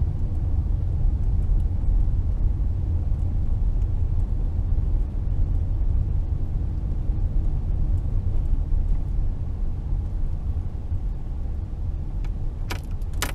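Steady low rumble of a car driving slowly, heard inside the cabin. A few sharp clicks come near the end.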